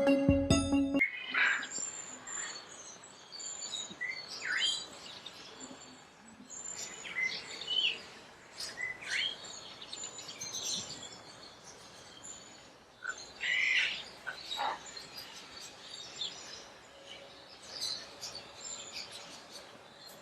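Wild birds chirping and calling: many short high chirps and whistles, some sweeping up or down in pitch, scattered throughout, with a louder cluster of calls a little past the middle.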